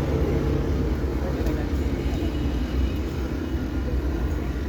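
A steady low motor rumble with a faint humming tone, in a noisy background.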